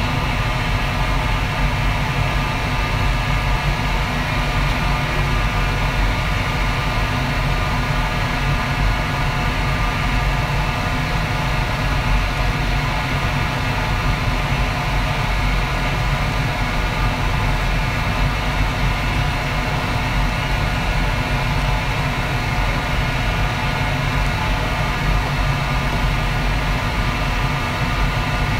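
Steady, loud mechanical roar of a restaurant kitchen's wok station, with a deep rumble and a constant hum of several steady tones that does not change.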